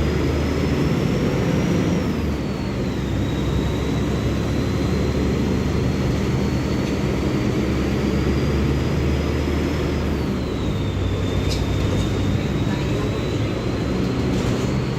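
Mercedes-Benz OF-1724L bus's six-cylinder Bluetec 5 diesel engine running under way, a steady low drone with a high whine that climbs slowly and drops sharply twice.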